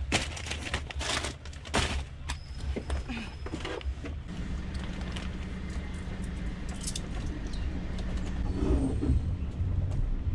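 Paper shopping bags rustling and being set down on a van seat in a few sharp crinkles, then a van's engine running with a steady hum from about four seconds in.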